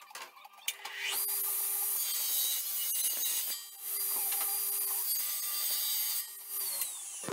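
Homemade table saw, a circular saw blade running up through a wooden table, cutting through wooden boards twice with a short dip between the cuts. The whine slides down in pitch near the end.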